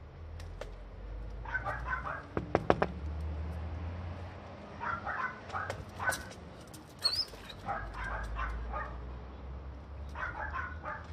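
Dog barking in short repeated bursts of several quick barks at a time, with a few sharp knocks about two and a half seconds in.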